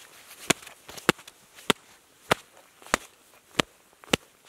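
Leather mitts slapped together in a steady rhythm: seven sharp slaps, a little under two a second.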